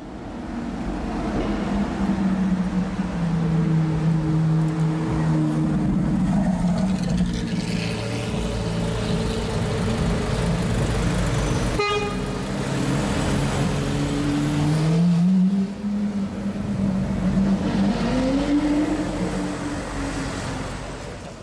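Lamborghini Aventador's V12 engine running in traffic, its note holding and dipping, then climbing steeply about three quarters of the way through as the car accelerates.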